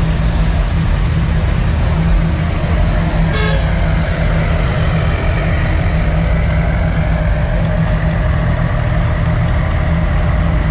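Diesel pickup trucks rumbling past at low speed close by, with a short horn toot about three seconds in.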